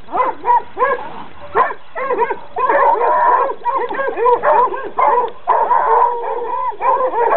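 Coonhounds barking and yelping in quick succession, several short calls a second, overlapping and without a break.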